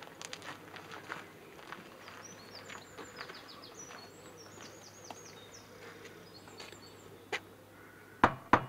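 Birds chirping over a quiet background, then a few sharp knocks on a door near the end.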